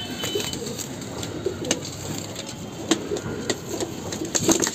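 Domestic pigeons cooing, low and repeated throughout, with scattered sharp clicks and rustles mixed in.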